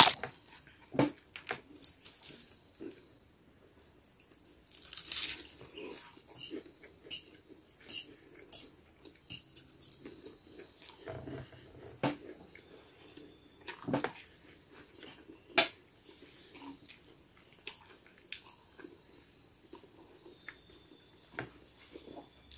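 Close-up eating sounds: crunchy bites of toasted bread and chewing, with scattered short clinks of a metal fork against a ceramic plate.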